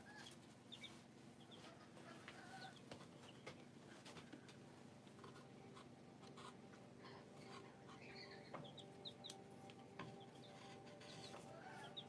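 Young chicks peeping faintly in short high chirps scattered through, with light clicks and scratches as they move on straw bedding, over a low steady hum.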